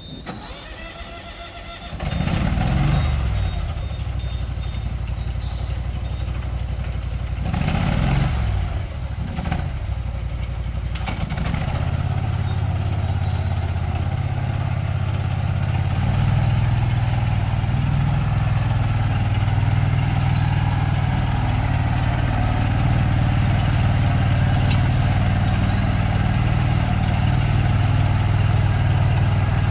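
Engine of an Iseki Ai-saika riding field-management machine starting about two seconds in, running unevenly with a brief surge, then settling into a steady idle that rises a little about halfway through.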